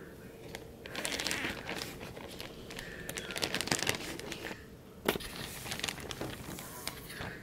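Plastic Ziploc bag crinkling as it is handled and pulled open, then rustling as a hand reaches inside, with a sharp click about five seconds in.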